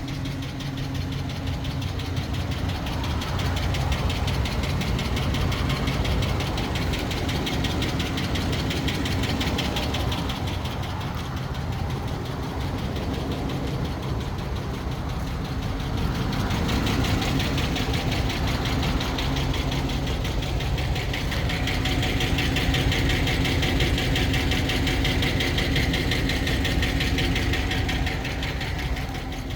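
Hemi V8 idling hot with a rapid, steady ticking that comes up stronger for a while in the second half. There is no misfire, and the owner cannot tell whether it is the typical Hemi tick or an exhaust manifold leak.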